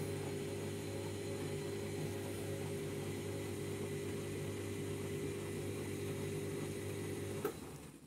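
Candy Grand'O Vita front-loading washing machine running, its drum motor humming steadily as it tumbles water during the heating stage of a 90 °C wash. The hum stops with a click near the end.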